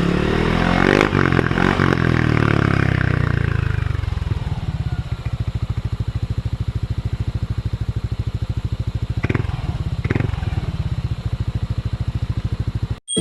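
Yamaha NMAX scooter's single-cylinder engine through an aftermarket Apido exhaust pipe, revved for the first few seconds and then settling into a steady idle with even exhaust pulses. Two quick throttle blips come a few seconds apart, and the sound cuts off suddenly at the end.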